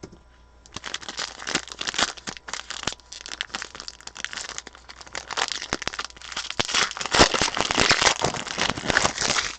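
Wrapper of a football trading-card pack being torn open and crinkled by hand, a run of dense crackling that grows loudest near the end.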